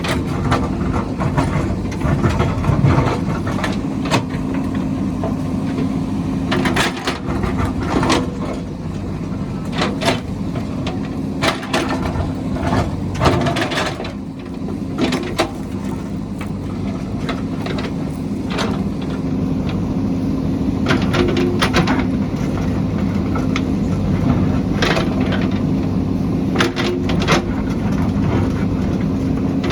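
A heavy construction machine's engine running steadily, with repeated sharp knocks and clanks of metal working.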